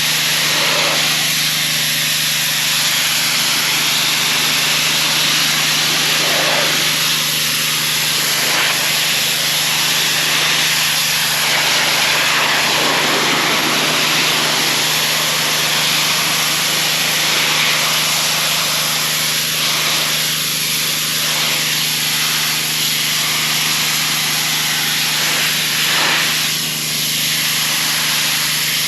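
Gas-engine pressure washer running steadily, its small engine humming under the loud hiss of the high-pressure spray as it blasts dirt and algae off a retaining wall; the spray's sound swells and dips as the wand moves.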